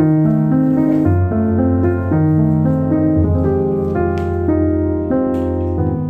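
Background piano music: a steady flow of held notes over a low bass line.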